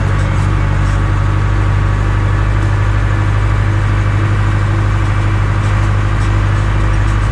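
Deutz-Fahr DX 3.60 tractor's air-cooled Deutz diesel engine running steadily at an even speed, with no revving.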